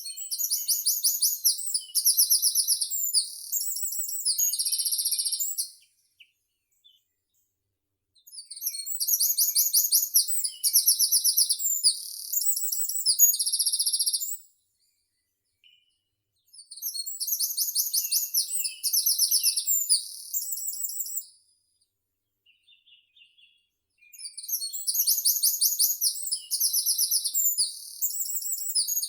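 A songbird singing a long, high-pitched song of rapid trills that ends in a buzzy note, repeated four times about every eight seconds with silence between songs.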